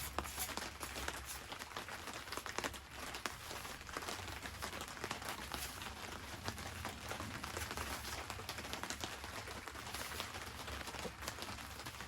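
Rain pattering steadily: a dense, even spatter of small drop impacts.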